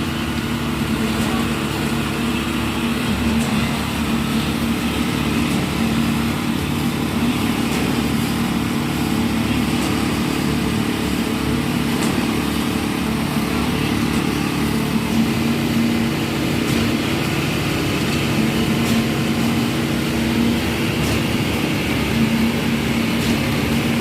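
A concrete pump truck's diesel engine running steadily with a constant drone while pumping concrete.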